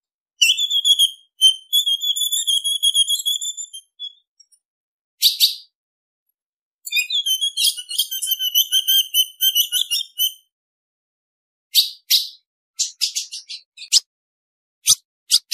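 Female ultramarine grosbeak (azulão) calling: a wavering high phrase of about three and a half seconds near the start and another of about the same length about seven seconds in, with single sharp chips between them and a quick run of short chips near the end.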